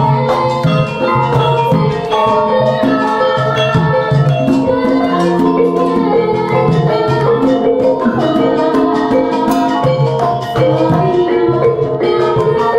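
Javanese gamelan ensemble playing: bronze keyed metallophones and kettle gongs ring out a steady, layered melody over regular strokes on the kendang hand drums.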